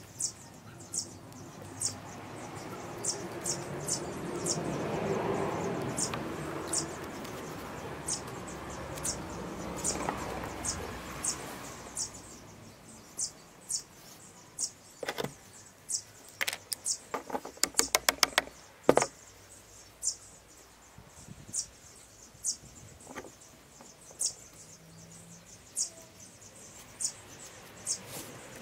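An insect chirping in short high notes about once a second. A rushing noise swells and fades over the first ten seconds or so. Later comes a run of sharp clicks from handling the metal split ring and PVC pipe.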